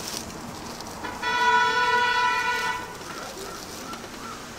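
A vehicle horn sounding once, a single steady honk of about a second and a half that starts about a second in.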